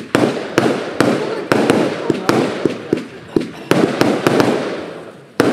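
Fireworks going off: a rapid, irregular run of loud bangs, about two a second, each trailing off in a rolling echo.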